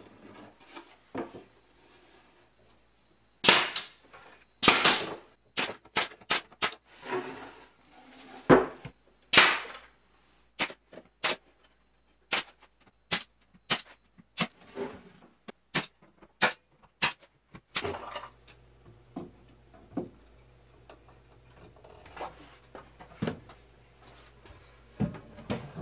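Brad nailer firing nails into plywood panels as a box is assembled: about twenty sharp shots at uneven intervals, several in quick pairs. After them come fainter knocks over a low steady hum.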